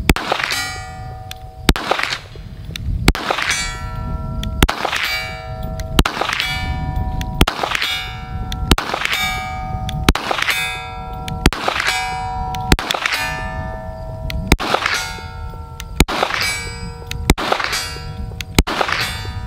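Smith & Wesson M&P 22 Magnum pistol firing .22 WMR hollow-point rounds at a steady pace, roughly one shot every second and a half. Each shot is followed by the ringing of a steel target being hit.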